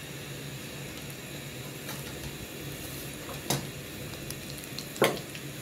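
Bread rolls deep-frying in hot oil, a steady sizzle and bubbling as they brown, close to done. Two sharp clicks cut through it, about three and a half seconds in and again near the end, the second the loudest.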